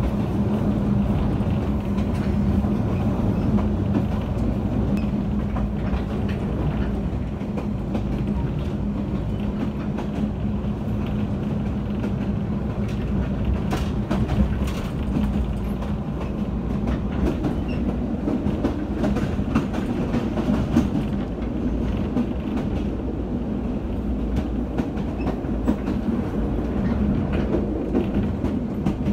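Running noise of a Toyama Chihō Railway electric train heard from inside the car: a steady low rumble of wheels on rail with a constant hum, broken by scattered clicks of the wheels over rail joints.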